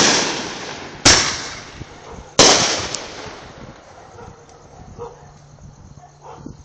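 Aerial fireworks bursting overhead: three sharp bangs in the first two and a half seconds, each fading out in a long echoing tail, then quiet.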